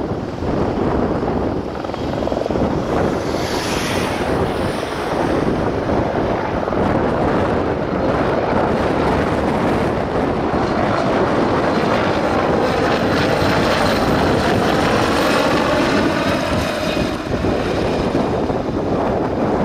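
Apache AH-64E attack helicopter flying past, its rotor and turbine noise steady and loud, taking on a sweeping, phasing sound in the second half as it passes. Wind buffets the microphone.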